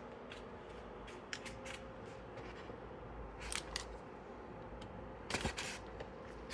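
All-cardboard toy package being handled and opened by hand: scattered faint clicks and scrapes of card, a short cluster of them about five seconds in.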